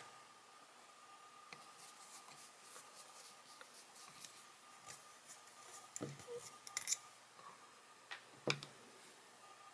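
Small hand screwdriver turning out screws from the traveling wave tube's metal housing: mostly quiet, with a few small metallic clicks and scrapes, the sharpest a little after six seconds and at about eight and a half seconds.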